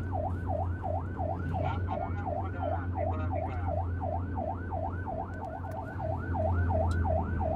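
Police car siren yelping, a fast rising-and-falling tone about three times a second, heard from inside the car over the steady low hum of its engine and tyres.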